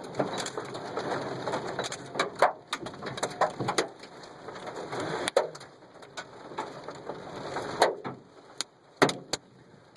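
Hailstones pelting a car, heard from inside the cabin: irregular sharp knocks on the body and glass over a steady rush of storm noise, with a few much harder strikes.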